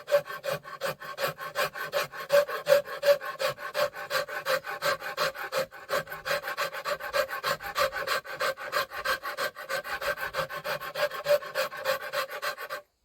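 Hand rasp or file worked in quick back-and-forth strokes on a bow under construction, about four strokes a second, each stroke scraping with a steady ringing squeal. The strokes stop abruptly near the end.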